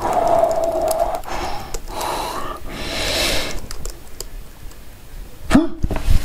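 A man's wordless reactions: a drawn-out 'ooh', a rising exclamation and then a hissing breath, with scattered laptop keyboard clicks. Near the end come a couple of thumps as the laptop lid is shut.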